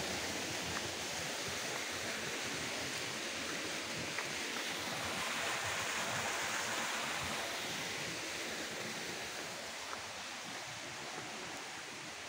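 Rushing water of a jungle stream: a steady, even hiss of flowing water that eases slightly in the second half.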